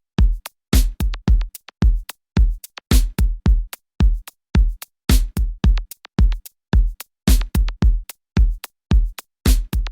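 Background music: a drum-machine beat of punchy kick and snare hits, about two to three a second, with short gaps between the strikes.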